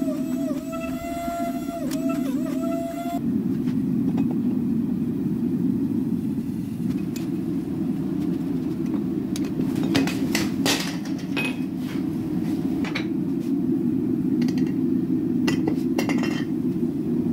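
For about the first three seconds a hydraulic forging press squeezes a hot steel billet, its pump whining with a wavering, dipping pitch. Then, over a steady low drone, a hammer strikes the hot billet on an anvil: about a dozen sharp, irregular blows between roughly seven and sixteen seconds in.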